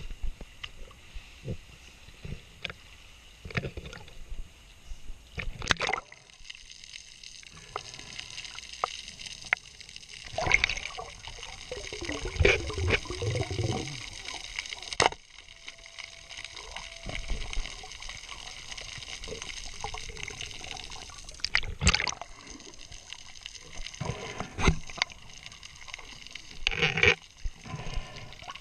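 Water sloshing and splashing at the surface, then, about six seconds in, the muffled sound of being underwater: a steady hiss with scattered clicks and knocks.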